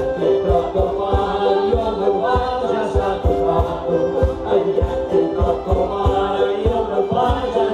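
Madeiran folk music played for the dancers: a group singing together over a held tone, with a steady thumping beat.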